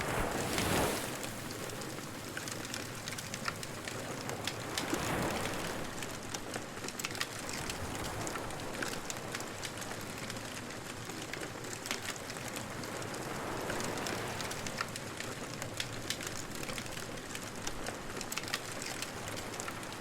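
Wood fire crackling and hissing, with many small pops scattered through it. The fire swells briefly in louder rushes near the start and again around five seconds in.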